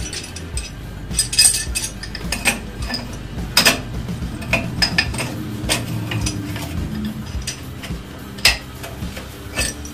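Irregular metallic clicks and clinks of a hand tool working a threaded pipe nipple at the wall under a sink, with a few louder knocks.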